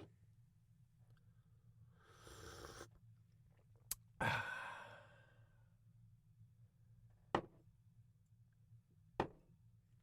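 A person slurping coffee: a short slurp about two seconds in, then a louder, longer slurp that tails off. Two sharp clicks follow later.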